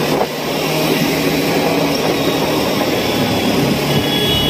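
Motorcycle running at road speed with heavy wind rush over the rider's microphone, its engine a steady low drone underneath. A brief high tone sounds near the end.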